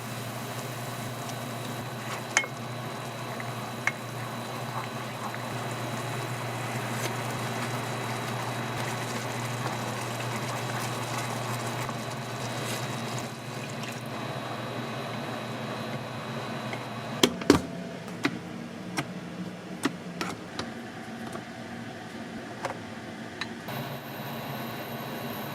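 Liquid bubbling steadily in a pot on the stove, with a few light clicks of utensils, most of them together about two-thirds of the way through.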